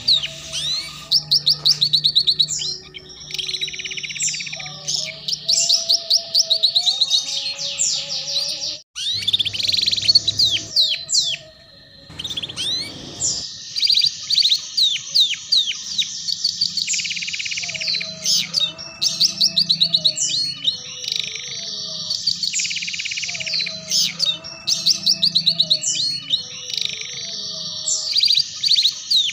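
Domestic canary singing a long rolling ngeriwik-style song of very fast trills and chirps, with a short break about a third of the way through.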